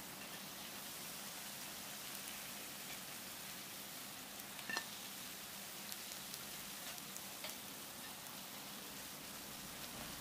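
Grated-potato fritters sizzling in shallow oil in a frying pan: a steady hiss with scattered small pops and crackles. A sharp click about five seconds in.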